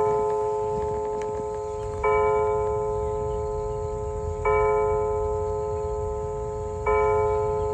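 DP 205 clock chime striking the same bell-like note three times, about every two and a half seconds, each strike ringing on and fading slowly into the next.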